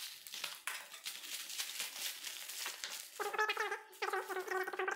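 A knife slitting a plastic courier mailer and the plastic film rustling and crinkling as it is pulled open. From about three seconds in, a high, wavering pitched voice or call comes in over it.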